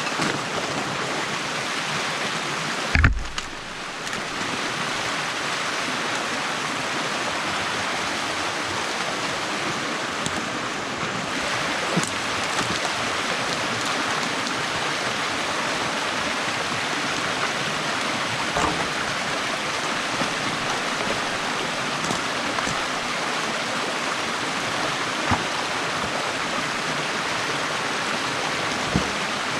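Water rushing steadily through a breach in a beaver dam, with a sharp knock about three seconds in and a few fainter clicks later.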